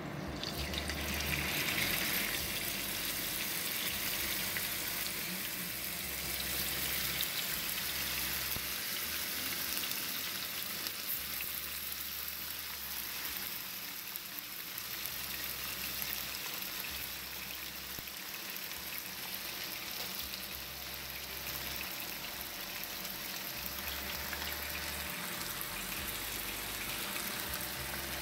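Thin strips of raw beef sizzling in hot oil in a stainless steel pot as they are dropped in to brown. A steady frying hiss swells about two seconds in.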